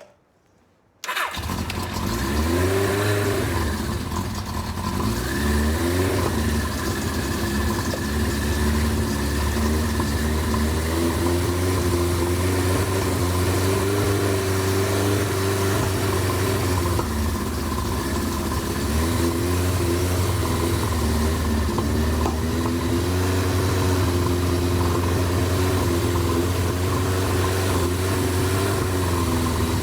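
1983 Suzuki GS1100GK's inline-four engine started on the choke about a second in, then running at a fast idle, its revs rising and dipping now and then.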